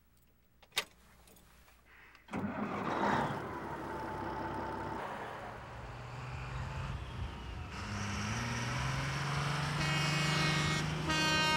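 A single click, then about two seconds in a semi truck's engine starts up with a sudden burst and keeps running steadily. Music begins to come in near the end.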